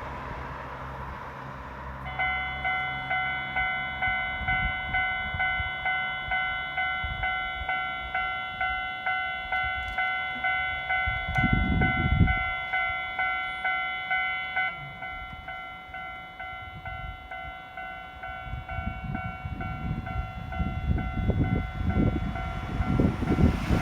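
Japanese railway level-crossing warning bell ringing in an even ding-ding rhythm of about two strikes a second, starting about two seconds in. A short low rumble comes near the middle. From the second half an approaching train's rumble grows and reaches the crossing near the end.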